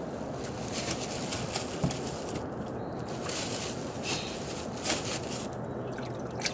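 A plastic bag of northern pikeminnow being handled: several short crinkly rustles as the bag and fish are moved, with one dull thump about two seconds in. A steady rushing background runs underneath.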